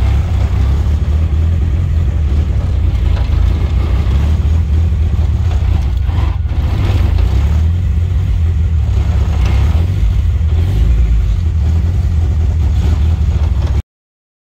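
Nissan SR20DET turbo four-cylinder engine running steadily on a freshly installed Megasquirt plug-and-play ECU, a dense low rumble; the sound cuts off abruptly near the end.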